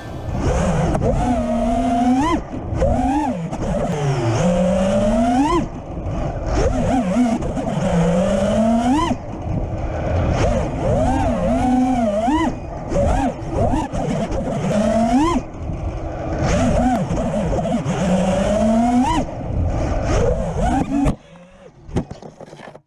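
5-inch FPV quadcopter's brushless motors (T-motor F40 Pro II, 2400 KV) and propellers whining, the pitch swooping up and down quickly with throttle punches. The sound drops off suddenly about 21 seconds in.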